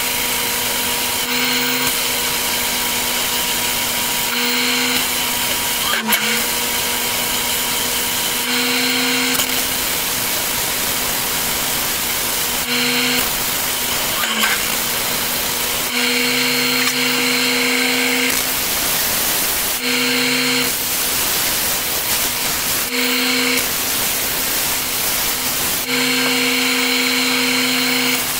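Delta benchtop belt sander running steadily, a wooden block being sanded on its belt: a constant motor hum under a dense sanding hiss. The sound grows louder and brighter in stretches of a second or two, several times, and there is one sharp tick about six seconds in.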